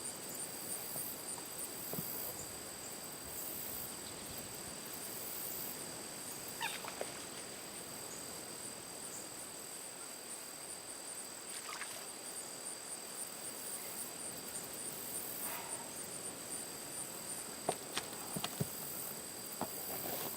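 Outdoor insect chorus: a steady high-pitched drone that carries on throughout, with a few short faint chirps scattered across it.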